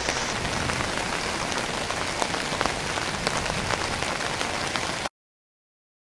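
Rain falling on a surface, a steady hiss with many small drop ticks, cutting off abruptly about five seconds in.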